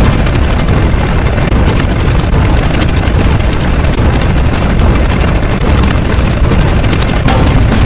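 Loud, continuous, heavily distorted rumbling roar with deep bass and a crackling edge, unbroken and without rhythm.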